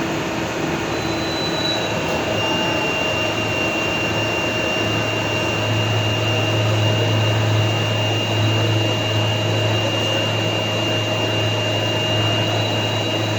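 Metalworking machine tool running steadily while cutting a 15-degree taper in metal, a constant machine noise with a few steady whining tones. A low hum grows stronger about five seconds in.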